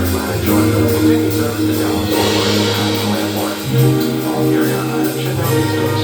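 Loud pop music with a bass line and a drum beat.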